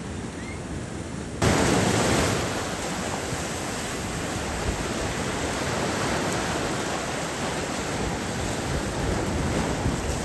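Ocean surf washing on a beach, mixed with wind buffeting the microphone. The noise jumps suddenly louder and brighter about a second and a half in.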